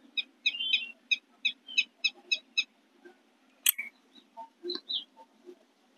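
A small bird chirping in quick, evenly spaced high notes, about five a second, which stop about two and a half seconds in. A single sharp click comes a little over a second later.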